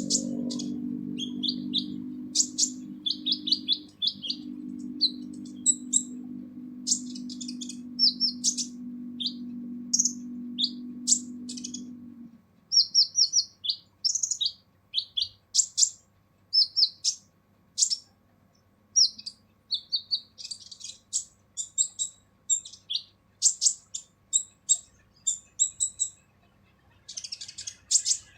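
Sunbird (kolibri ninja) singing a fast, harsh run of short high chirps and trills. A steady low hum runs underneath for the first twelve seconds or so, then stops.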